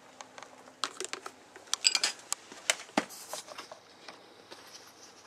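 Scattered light clicks, taps and rustles of handling as a corded video camera is moved about and repositioned, thinning out after about three and a half seconds.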